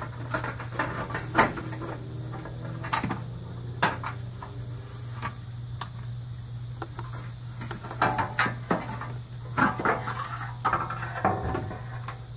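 Irregular clicks, clinks and knocks of metal hand tools and parts being handled, busiest in the second half, over a steady low hum.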